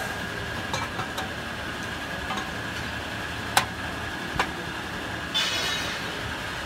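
Metal tool clicking and scraping against the steel cylinder of a pallet machine: a few sharp clicks in the middle and a short scrape near the end, over a steady engine-like hum.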